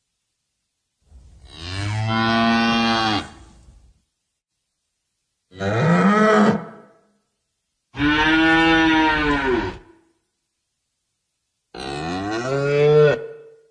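Cows mooing: four separate long moos, each lasting one and a half to three seconds, with a pitch that rises and then falls, and silence between them.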